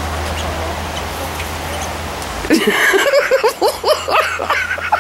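Steady low rumble and hiss that stops abruptly about halfway through, followed by poultry (guinea fowl and chickens) calling loudly in a rapid string of short, rising calls.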